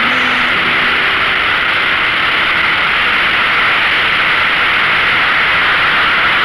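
Steady wind rush over the camera microphone of a Yamaha XVS1300A Midnight Star riding at cruising speed. The V-twin engine with its Vance & Hines 2-into-1 exhaust is heard low beneath the wind.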